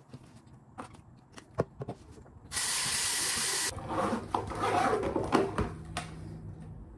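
Toiletries clicking and knocking on a bathroom counter, then a single hiss of spray lasting about a second, followed by rustling as a toiletry bag is handled.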